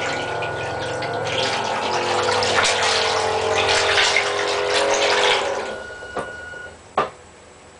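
Small bilge pump motor running in a homemade RC submarine with a steady whirring hum, churning and splashing bathtub water; it fades out about six seconds in. A single sharp click comes near the end.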